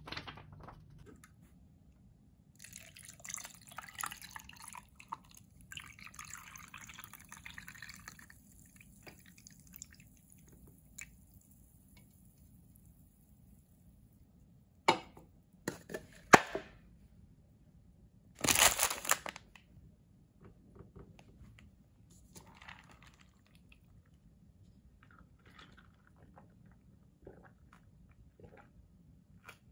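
A carbonated lemon sour poured from a can into a paper cup, hissing and fizzing for several seconds. Later comes a few sharp knocks and a louder, short rustling burst as things are handled on the table.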